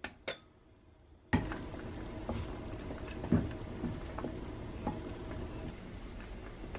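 A glass pot lid clinks twice as it is lifted off. About a second later comes the steady bubbling of black beans at a full boil in the open pot, with a few light knocks of a wooden spoon against the pot as the foam is skimmed.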